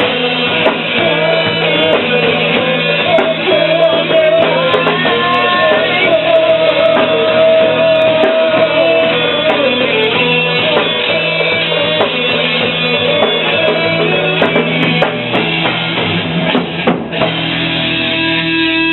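Rock music with a drum kit and guitars playing, a wavering melodic lead line on top.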